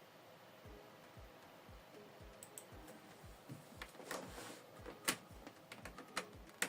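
Faint background music with a steady low beat, with a handful of sharp clicks in the second half, the loudest about five seconds in.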